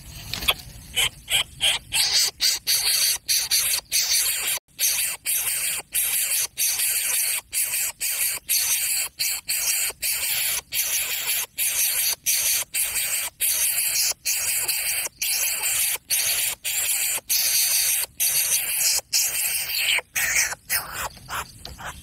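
Greater coucal nestling begging with harsh, hissing calls, repeated about twice a second with only short breaks.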